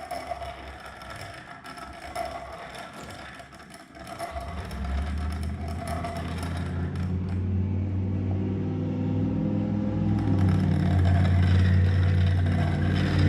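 Piston ring end being ground on a hand-cranked ring gap filer, a scraping rasp made of many short strokes. From about four seconds in, a steady low hum starts underneath and gets gradually louder.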